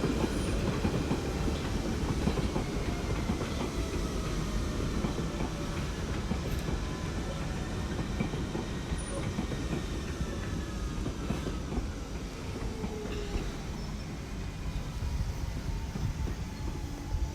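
London Underground train running through the station, its wheels rumbling on the track, with a faint motor whine that glides slowly in pitch. The sound eases a little in the second half.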